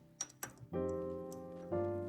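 Background music: sustained keyboard-like chords that change about once a second, with a few short clicks in the first second before the chords come in.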